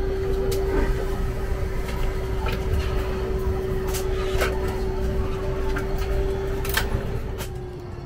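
Airliner cabin noise during boarding: a steady cabin hum with a steady tone over it, and scattered clicks and clunks of overhead luggage bins being handled and shut.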